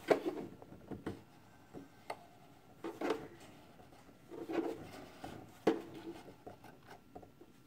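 Hands handling the bobbin area of a sewing machine: scattered light clicks and soft rubbing as parts are moved and stuck thread is pulled at.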